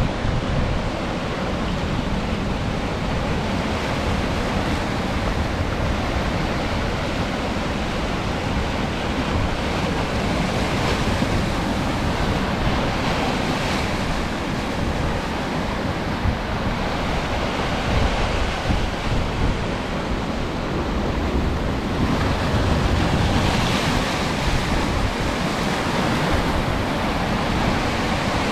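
Steady wash of wind and water: wind buffeting the microphone over rushing surf or waves, with a few brief knocks around the middle.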